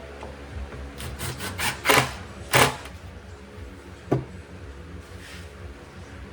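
Parts and tools being handled while a leaf blower is put back together. There is a quick run of clicks about a second in, two loud knocks shortly after, and one more knock about four seconds in.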